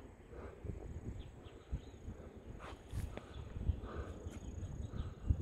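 Open-air ambience: a steady high-pitched insect trill over an uneven low rumble on the microphone, with a few faint clicks.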